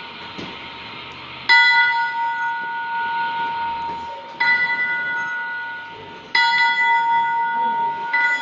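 A metal bell rung by pulling a handle, struck four times at uneven intervals. Each strike rings on in a steady tone until the next.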